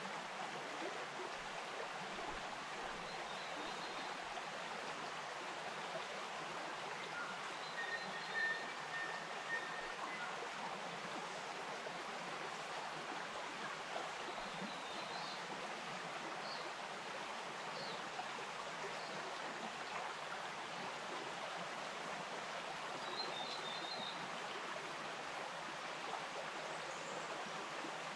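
Bush stream flowing over stones, a steady, even rush of water. A few faint, short bird calls come through now and then.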